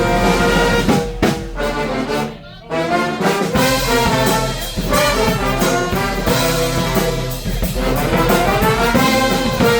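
A street brass band playing live, horns over a steady beat. About two and a half seconds in, the band drops out for a moment, then comes back in together.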